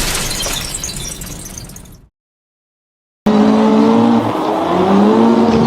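The tail of a car crash sound effect fading away over about two seconds, then a second of dead silence. Then another car sound starts suddenly, with several pitched tones sliding up and down.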